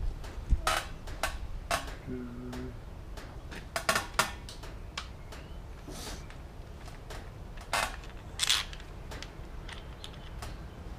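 Scattered light metallic clinks and knocks as the timing chain, sprockets and tools are handled on a 24-valve VR6 engine, with a brief low squeak about two seconds in.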